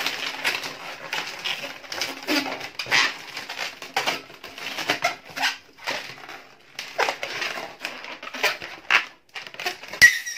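Latex modelling balloons squeaking and rubbing as they are twisted and wrapped together by hand, in many short irregular squeaks. One sharper, louder squeak comes near the end.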